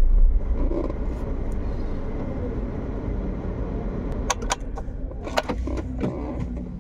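Steady low rumble of a running vehicle, with a few sharp clicks and knocks past the middle.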